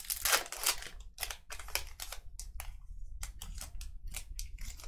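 Trading cards and packs being handled and flipped through: a string of quick, irregular clicks and rustles of slick card stock and wrapper.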